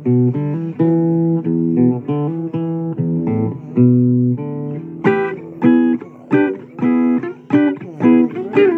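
Guitar playing an instrumental blues passage, picking single notes and chords. From about five seconds in it strikes sharper chords in a steady rhythm.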